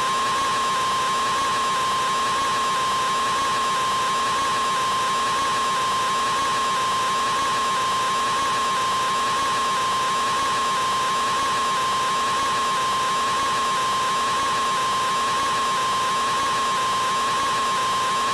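A man's scream of 'aaaa', artificially stretched into one unbroken tone that holds the same pitch and loudness with no pause for breath.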